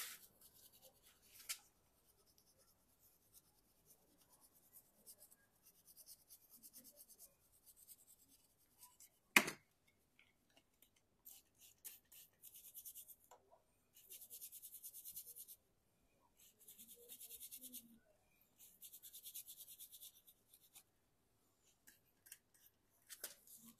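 Scrubbing a degreaser-coated surface by hand, in short scratchy bursts of a second or two with pauses between, and one sharp knock about nine seconds in.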